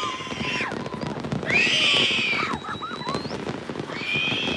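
New Year's Eve fireworks: a dense crackle of firecracker pops, with shrill whistling fireworks sliding up and down in pitch about a second and a half in and again near the end.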